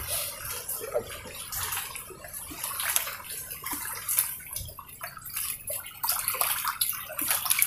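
Water lapping and sloshing against the shore among mangrove roots, an uneven splashing hiss with scattered small clicks and taps.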